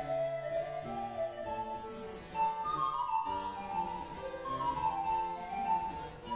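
Panflute and harpsichord playing the fast Allegro of a baroque recorder sonata in D minor: the panflute carries a melody of quick rising and falling runs, with plucked harpsichord chords and bass notes underneath.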